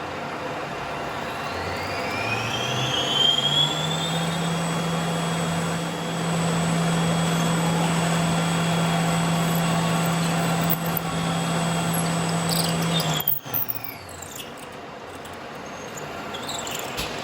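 Metal lathe's electric motor and spindle starting up with a rising whine, running steadily with a low hum, then switched off about 13 seconds in, the whine falling away as it spins down. Light clatter of handling near the end.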